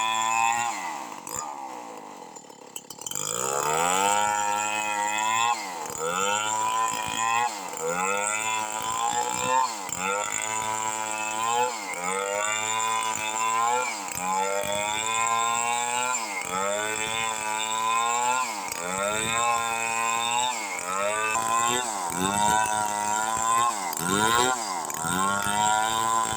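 Two-stroke chainsaw cutting a jengkol log into boards. The engine drops off about a second in and revs back up near three seconds, then its pitch dips and recovers about every two seconds as the chain bogs down in the cut and frees again.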